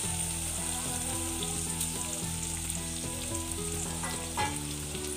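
Small prawns sizzling steadily as they fry in hot oil in a non-stick wok.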